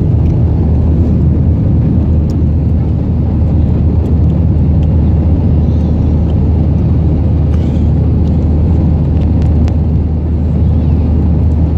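Jet airliner cabin noise while climbing just after take-off: the wing-mounted turbofan engines running at climb power, a loud, steady low rumble with a deep hum underneath.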